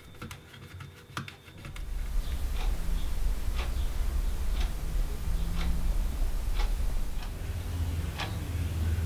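Small clicks of a hex key turning a screw into a carbon-fibre plate, then from about two seconds in a sharp tick about once a second over a steady low hum.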